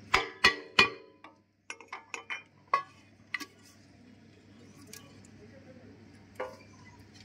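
Hammer striking the steel rocker housing of a Cummins KT1150 diesel engine: three sharp, ringing metal-on-metal blows in quick succession, then a run of lighter clinks and taps as the rocker cover is worked loose.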